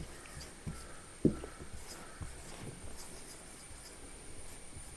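Quiet writing sounds, with a few soft knocks; the loudest knock comes about a second and a quarter in.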